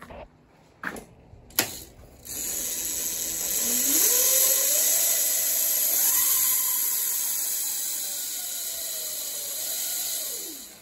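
The converted Razor SX500's new three-phase brushless motor spinning the raised rear wheel on a bench test: a loud whirring hiss with a motor whine that rises in pitch as the throttle opens about two seconds in, holds, then falls away and cuts off at the very end. A few clicks come first.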